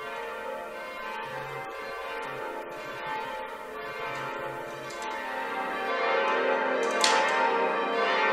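Church bells rung full circle in change ringing: a steady, rhythmic round of overlapping bell strikes, heard from the ringing chamber below the bells as the ringers pull the ropes. The ringing grows louder about six seconds in.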